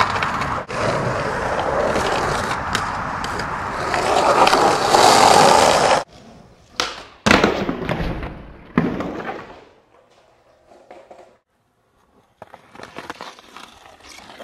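Skateboard wheels rolling loudly over rough pavement for about six seconds, then stopping abruptly. A few sharp clacks of the board hitting concrete follow, and quieter rolling comes back near the end.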